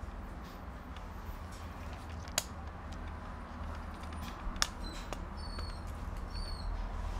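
Young German Shepherd puppies squeaking while nursing: a few short, high-pitched squeaks in the second half over a low steady hum, with a couple of sharp clicks.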